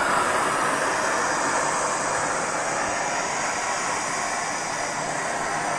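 Bernzomatic TS8000 gas torch with a Searzall attachment burning: it comes on suddenly at the start and then runs with a steady, even hiss of the flame.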